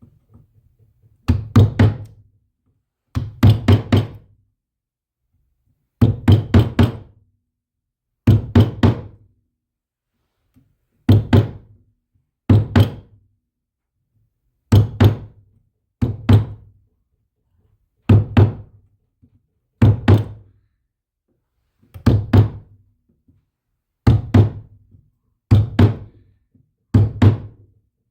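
Repeated knocking: about fourteen bursts of several quick knocks each, one burst every two seconds or so, with silence in between.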